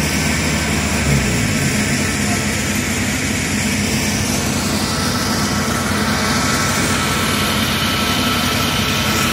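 Kubota rice combine harvester's diesel engine running loud and steady close by, its pitch dropping slightly about a second in.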